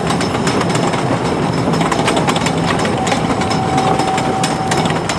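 Wooden roller coaster train being hauled up the chain lift hill: a steady clatter of the lift chain with rapid, uneven clicking of the anti-rollback dogs, and a thin steady whine for a couple of seconds near the end.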